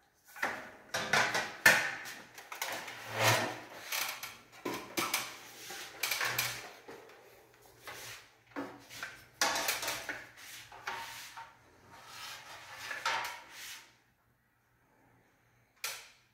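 Sheet-steel wall-mounting plate of a split air conditioner's indoor unit being handled and rubbed against the wall, a run of irregular scraping and clanking that stops about fourteen seconds in. A single sharp click near the end.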